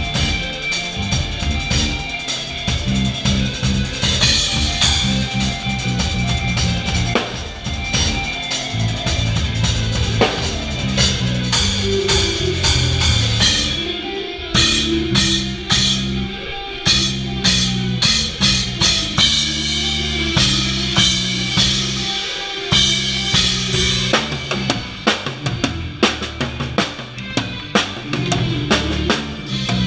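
A live band playing during a sound check: a drum kit's kick and snare hits over low pitched notes that change in steps.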